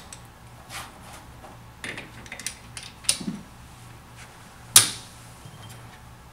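Metal dies being fitted into a hydraulic swaging tool's die head: a scatter of small metal clicks and taps, with one sharp, loud click a little after the middle as a die snaps into place.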